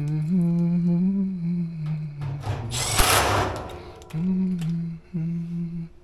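Cordless Milwaukee Fuel driver spinning sheet-metal screws into a dryer's front bulkhead. The motor whines up to speed and runs for about two seconds, then comes a short rattling burst with a click, then two shorter runs of the driver near the end.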